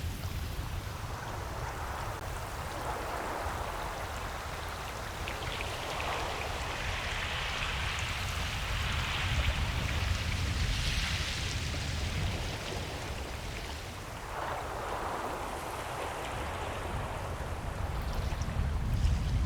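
Ocean waves washing onto a beach: a steady hiss of surf that swells and eases as waves break and run back, over a constant low rumble.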